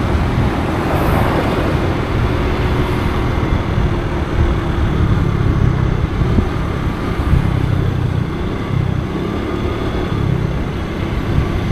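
Road noise from a moving vehicle, with wind rumbling unevenly on the microphone.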